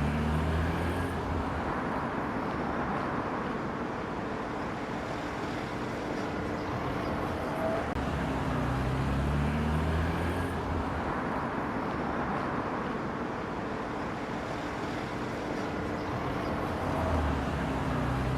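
Street traffic noise: motor vehicles passing and running, with a steady road hum and engine rumbles that swell and fade a few times.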